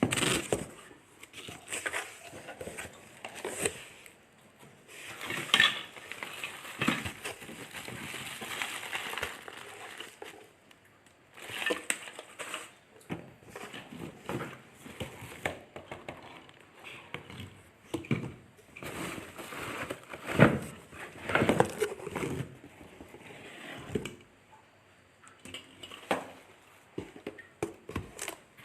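Irregular rustling, crackling and sharp knocks of objects being handled, in uneven bursts, with no motor running.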